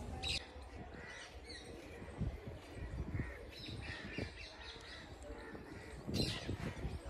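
Birds calling now and then in short, faint calls, over a low steady rumble.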